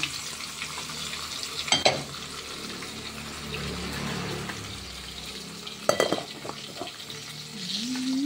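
Steady hiss of a pot of rice simmering on a gas stove, with two sharp metallic clinks from the aluminium pot and lid, about two seconds in and again about six seconds in.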